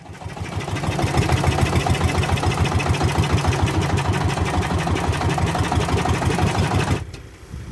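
Small fishing boat's engine running with a fast, even chugging that stops abruptly about seven seconds in.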